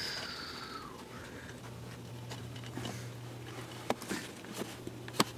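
Quiet indoor room tone with a low steady hum, a short falling whistle-like sound in the first second, and a couple of sharp faint taps near the end.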